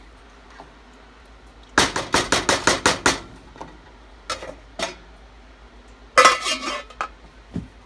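Cookware knocking on a stainless steel soup pot. A quick run of about ten sharp knocks comes first, like a spoon being rapped on the pot, then two single knocks. Near the end there is one loud ringing metal clank as a metal cup or bowl strikes the pot.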